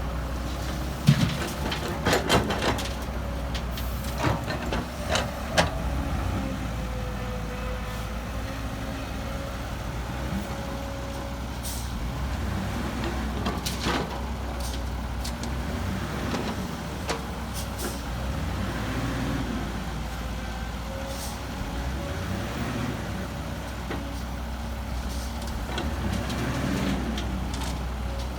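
Diesel engines of heavy earthmoving machinery (dump trucks and a bulldozer) running steadily, with a burst of sharp metallic clanks in the first several seconds and a few single knocks later.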